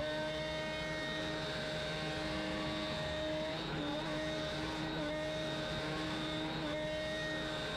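Router spindle on a Shapeoko CNC machine running with a steady whine while it cuts a round pocket into a wooden block. The pitch dips briefly a few times, about every second or two.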